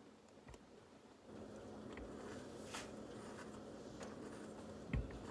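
Faint scraping and light ticks of a spoon worked around the inside of a stainless steel tumbler to loosen a steamed idli, with a soft thump near the end. A steady low hum comes in about a second in.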